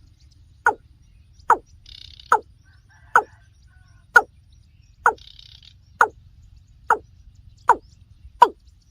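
Watercock (kora) calling: a steady series of short, hollow notes, each falling in pitch, about one every 0.85 seconds.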